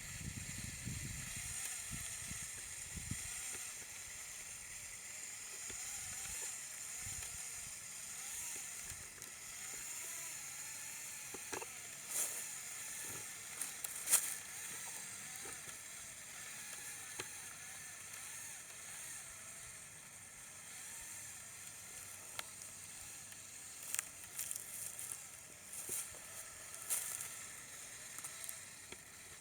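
Lego Technic RC model's electric drive motor and plastic gear train whining as it crawls over rough ground, the pitch wandering with the load. A few sharp clicks come through in the middle and near the end.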